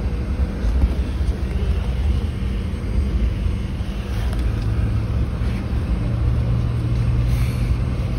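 Airliner taxiing after landing, heard from inside the cabin: a steady low rumble of the jet engines and the wheels rolling on the taxiway. A low drone grows stronger about six seconds in.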